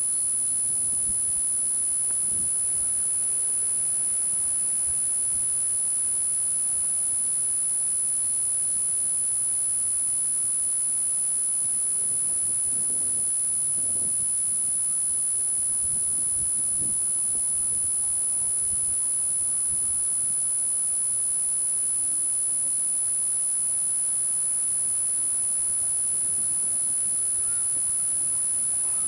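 A steady, high-pitched electronic whine that never changes, over faint outdoor background noise, with a few faint low knocks around the middle.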